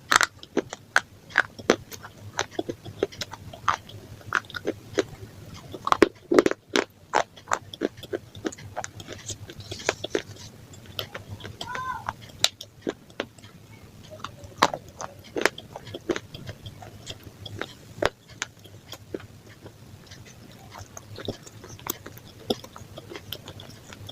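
A person chewing and crunching crisp food with crumbles mixed through it, close to the microphone. Many short crackling crunches come irregularly, bite after bite.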